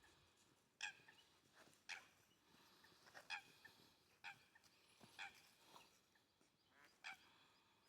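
Faint, short, sharp calls of a water bird, about six of them, spaced roughly a second apart.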